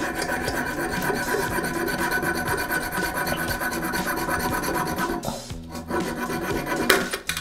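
Hand hacksaw cutting through the excess top of a toilet closet bolt at the base of the bowl, a steady rasping back-and-forth scrape. It stops briefly about five seconds in, then resumes.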